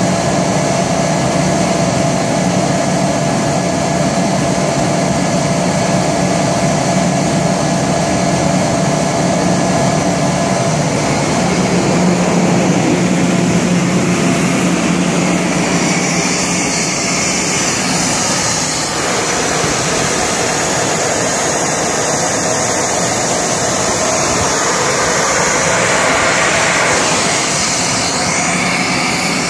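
Kaeser CS 121 100 hp rotary screw air compressor with a rebuilt airend, running on load. It makes a loud, steady drone with a low hum throughout, and a brighter hiss comes in about halfway through.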